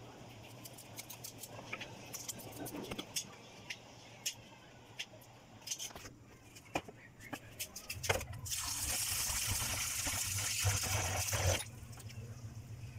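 Scattered light clicks and rustles from handling chopped spinach leaves, then a loud rushing hiss that lasts about three seconds and cuts off suddenly.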